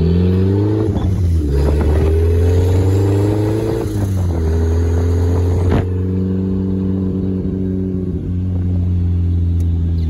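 Turbocharged 1.6-litre four-cylinder of a 1990 Mazda Miata, heard from inside the cabin, pulling up through the gears. Its pitch climbs, drops at a shift about a second in, climbs again, drops at a second shift about four seconds in, then holds steady at cruise. There is a single click about six seconds in.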